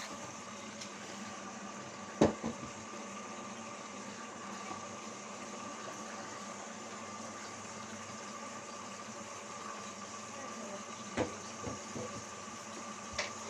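Indesit washing machine running through its wash cycle: a steady motor hum with water in the drum, and a few sharp knocks, the loudest about two seconds in and a cluster near the end.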